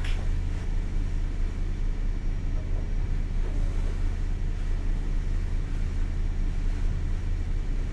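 Trawler yacht's diesel engines running steadily at cruising speed, a low, even drone.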